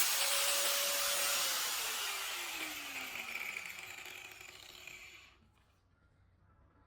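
Homemade drill-powered circular saw winding down after switch-off: its motor whine holds steady for about a second and a half, then falls in pitch as the blade coasts to a stop, fading out about five seconds in.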